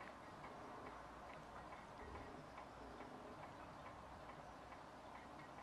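Near silence: room tone with a faint, regular ticking throughout.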